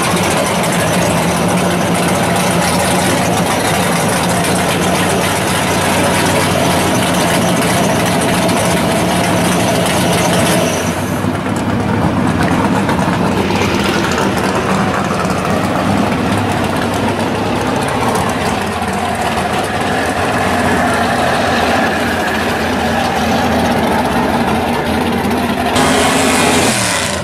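1969 Camaro drag car's engine idling steadily through its open exhaust.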